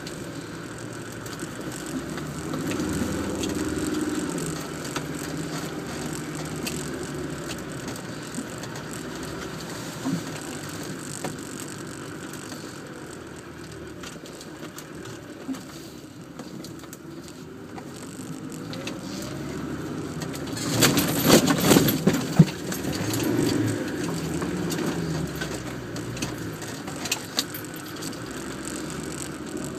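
Land Rover Defender engine running as the vehicle crawls off-road, the revs rising and falling with the throttle. About two-thirds of the way through comes a short, loud burst of rattling and knocking.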